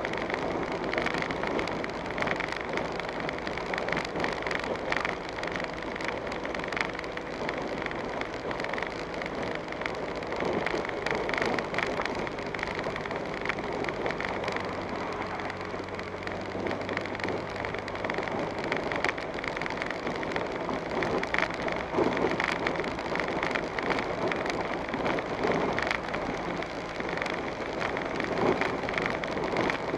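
Vehicle driving slowly over a rough dirt track: tyres crunching on dirt and gravel, with a constant patter of small knocks and rattles.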